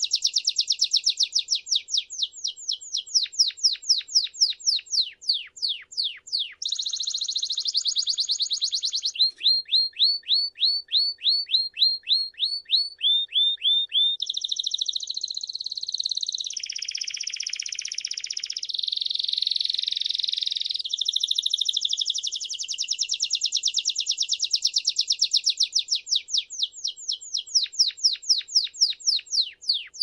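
Belgian canary singing a long unbroken song of rapid trills, each a run of repeated falling notes. It switches to a new phrase every few seconds, with denser buzzing rolls in the middle.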